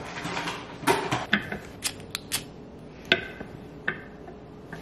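Scattered light clicks and taps, a few with a brief ringing, from a small glass candle jar being handled and set down on a marble tray.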